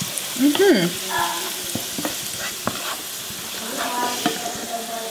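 Chopped onions sizzling in a skillet while a wooden spatula stirs them, scraping and clicking against the pan. A brief voice sound comes about half a second in.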